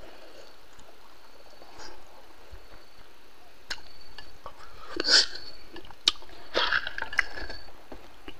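A man chewing and eating with his fingers, close to the microphone: irregular mouth noises and small clicks, loudest about five seconds in and again around seven seconds.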